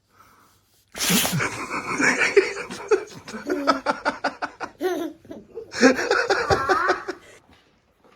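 People laughing hard: loud belly laughter starts suddenly about a second in, runs for about six seconds and dies away near the end.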